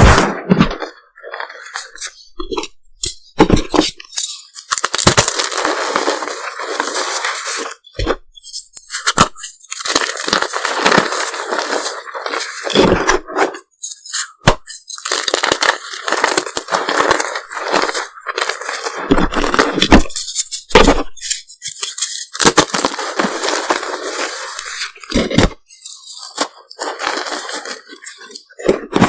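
Reformed gym chalk being crushed and crumbled, crackling and crunching in irregular stretches of many sharp snaps, with short pauses between.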